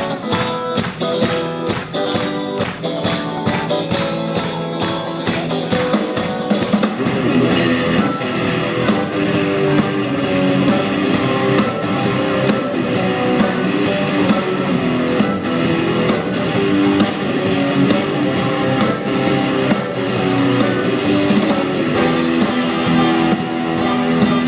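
Rock song played live: strummed guitar over a steady drum beat, with sustained notes filling in from about seven seconds in.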